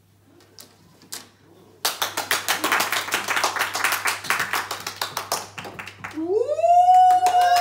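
A small group clapping, starting about two seconds in and lasting about four seconds. Near the end a single voice slides up and holds a long note.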